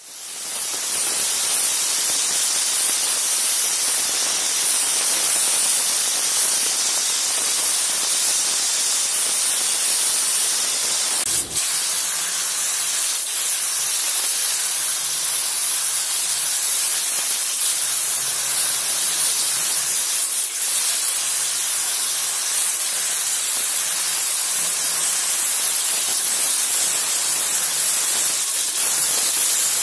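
Ultra-high-pressure water jet of a CNC water jet cutting machine running, a loud steady hiss with two brief dips.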